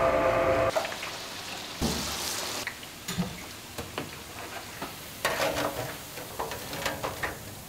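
Falafel sizzling in deep-fryer oil, with short knocks and clinks of metal baskets and a skimmer against steel trays.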